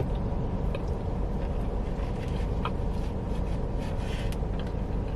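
Faint scraping and rubbing of a plastic fork in a takeout container of loaded fries, over a steady low rumble of a car's running engine.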